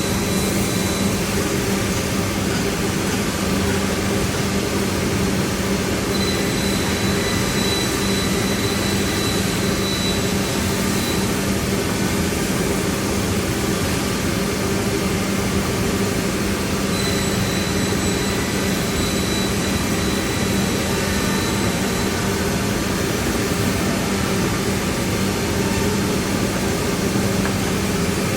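Shoda CNC router running: steady machine noise with a low hum and a thin high whine that comes and goes twice.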